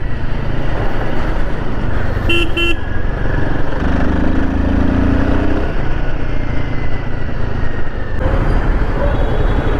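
Royal Enfield Himalayan 450's single-cylinder engine running under way with wind rush on the microphone, its note rising as it speeds up around four to five seconds in. A vehicle horn gives two short toots about two and a half seconds in.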